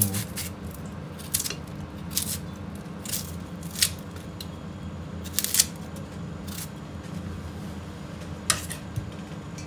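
Knife cutting small onions: about ten short, crisp cuts at irregular intervals, over a steady low hum.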